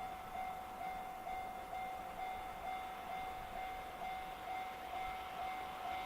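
Japanese railway level-crossing warning bell ringing in a steady, even rhythm of about two dings a second, the crossing closed for an oncoming train. Near the end a broader rushing noise begins to rise under the bell, an approaching train.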